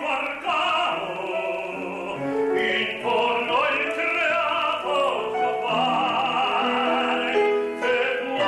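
A male operatic tenor singing a phrase, holding long notes with vibrato.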